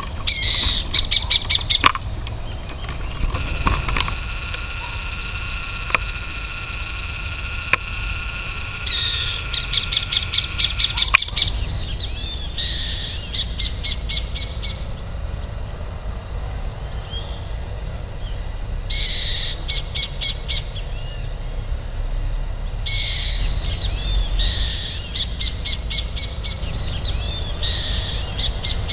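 Burrowing owl calling repeatedly, about seven times: each call is a harsh downward screech followed by a quick run of chattering notes.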